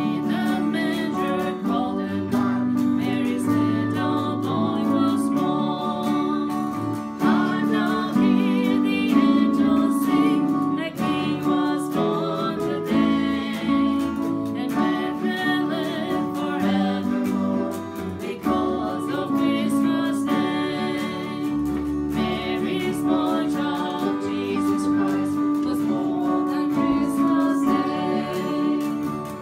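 A small ensemble plays a Christmas song: acoustic guitars strumming and an electric keyboard, with a woman singing the melody. Near the end she switches to bowing a violin.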